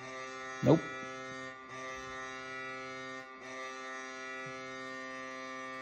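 NHL goal horn, the Colorado Avalanche's, played back from a recording: a steady horn blast holding one chord, with brief breaks about one and a half and three seconds in.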